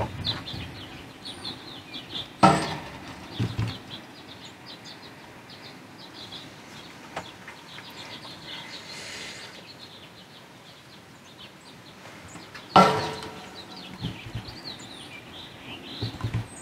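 Aoudad ram banging its horns against a metal protein feeder twice, about ten seconds apart, to knock protein pellets loose; each blow rings out like a gong. Small birds chirp throughout.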